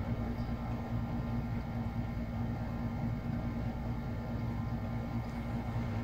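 Steady low mechanical hum with an even hiss, holding constant throughout.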